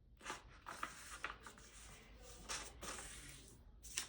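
A sheet of paper being folded in half and pressed into a crease: soft rustling and scraping in several short swishes.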